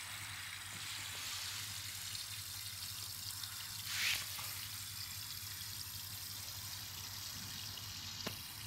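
Steady, fairly faint trickle of water pouring into a small garden pond, with a short louder swish about four seconds in.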